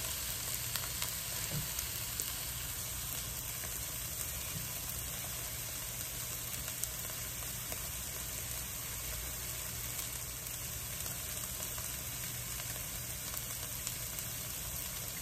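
Shredded trumpet mushroom taco filling frying in a skillet, a steady sizzle dotted with fine crackles.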